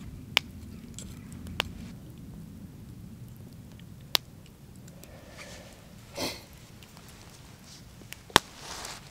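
Campfire crackling: four sharp pops a few seconds apart, the loudest near the end, over a low rumble, with a short soft rustle about six seconds in.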